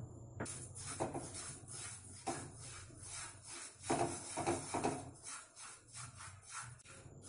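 Foxtail millet grains being dry-roasted in a non-stick kadai and stirred with a spatula: the grains rustle and scrape against the pan in quick repeated strokes.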